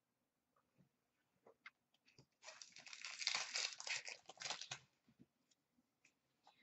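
A few faint clicks, then about two seconds of crinkling and tearing as a foil trading-card pack wrapper is torn open.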